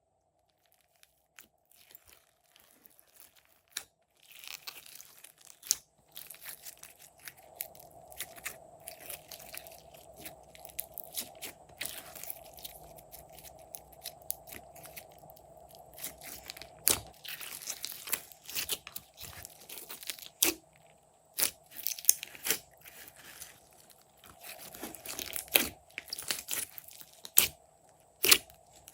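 Glossy slime being squeezed, stretched and pressed by hand, giving irregular crackling, popping clicks. It is almost silent for the first few seconds before the handling sounds begin.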